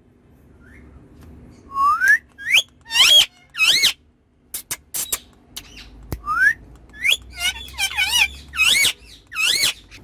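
Pet parrot making a run of about a dozen short, high whistles and squawky calls, several sliding upward, starting about two seconds in, over a faint low hum.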